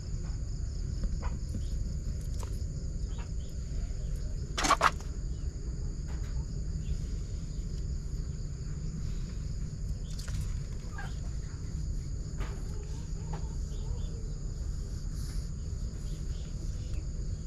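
Steady high insect chirring over a continuous low rumble, with one sharp knock about five seconds in and a few faint ticks.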